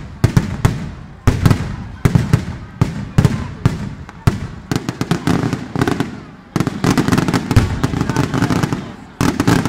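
Daytime fireworks: rapid volleys of sharp bangs, several a second, coming in waves that die away and start again, packed almost without a break from about five seconds in.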